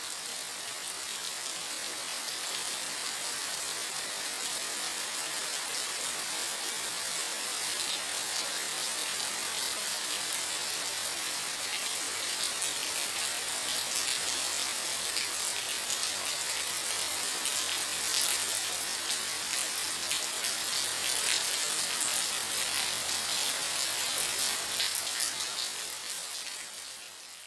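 Steady rain falling on a concrete slab and into standing puddles: an even hiss made of many fine drop ticks, a little louder past the middle.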